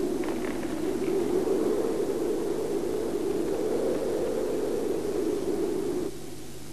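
Mountain wind blowing as a steady, low rushing hiss that swells and ebbs slowly, cutting off abruptly near the end.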